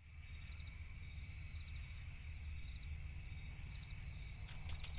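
Night ambience of crickets chirring steadily over a low rumble, fading in at the start, with a few soft clicks near the end.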